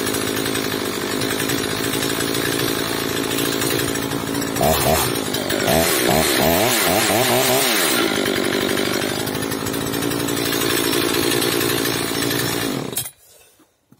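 Oleo-Mac 947 two-stroke chainsaw running steadily, revved several times in quick succession between about five and eight seconds in, then settling back to a steady idle. It cuts off about a second before the end. It now holds its idle on a new fuel pickup hose that had been drawing in air and starving it of fuel.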